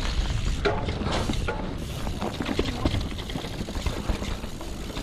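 Mountain bike running down a dirt forest trail: tyres rolling over dirt and dry leaves, the bike rattling and clicking over bumps, with a steady low wind rumble on the camera microphone.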